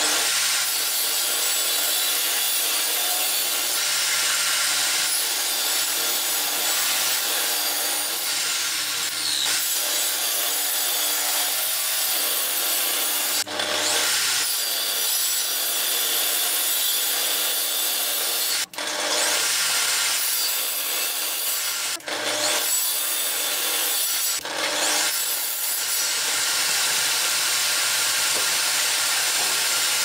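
Table saw running and ripping wooden boards, a loud steady cutting noise broken by a few brief dips between cuts.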